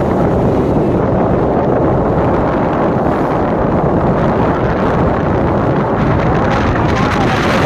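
Wind rushing over the microphone on a moving motorcycle, a loud, steady buffeting rush mixed with the bike's running and road noise.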